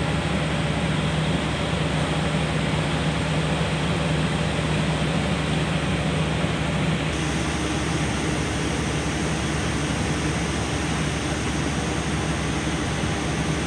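Diesel engine of heavy logging equipment running steadily under work, its note changing about halfway through.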